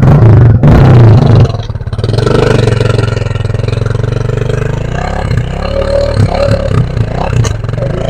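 KTM motorcycle engine revving: a loud burst of throttle at the start for about a second and a half, then running on with the revs rising and falling.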